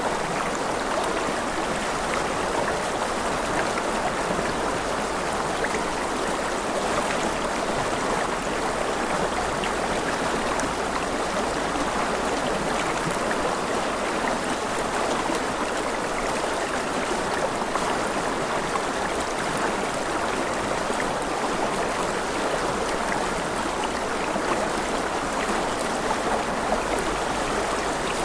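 Steady flowing water of a stream, an even unbroken rush with faint small splashes.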